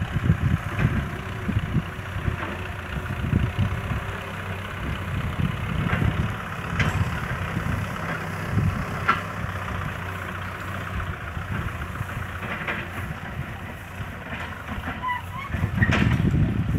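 Kubota farm tractor's diesel engine running at low speed as it pulls a loaded trailer, a steady pulsing rumble that grows louder near the end.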